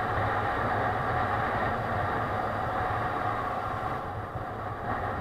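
Motorcycle cruising at a steady speed, heard from a helmet chin-mounted camera: a steady engine hum under a constant rush of wind and road noise.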